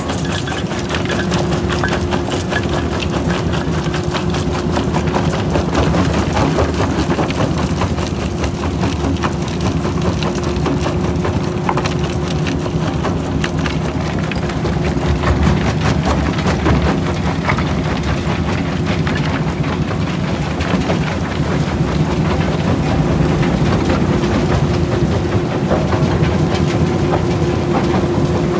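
McCloskey J40 jaw crusher running under load, its engine giving a steady drone with a held tone, while broken concrete and rock rubble clatters through the machine and onto its conveyors.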